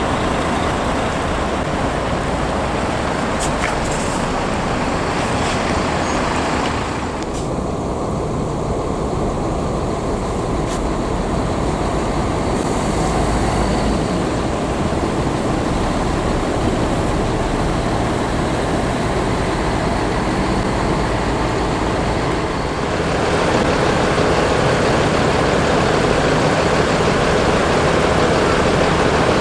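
Steady rumble and road noise of buses and heavy traffic, with no horn sounding. The sound turns duller abruptly about seven seconds in, then gets louder and fuller about twenty-three seconds in.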